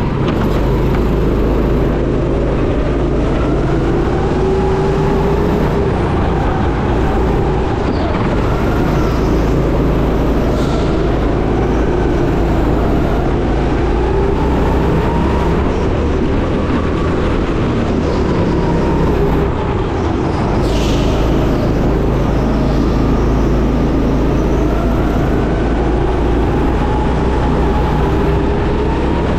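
Go-kart running at speed, heard from the driver's seat, its pitch rising and falling again and again as it speeds up and slows through the corners.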